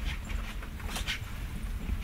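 Interior of a Bombardier passenger train running along the track: a steady low rumble with a short rattling clatter roughly once a second.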